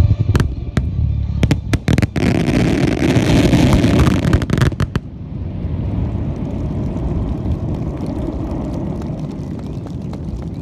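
Starmine fireworks barrage at its finale: rapid booming shell bursts, then about two seconds in a dense crackling rush that cuts off about five seconds in. A steady wash of crowd applause follows.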